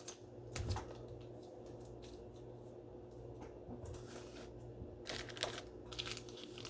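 Quiet room tone with a steady low hum and a few faint clicks and rustles, once about half a second in and several more near the end.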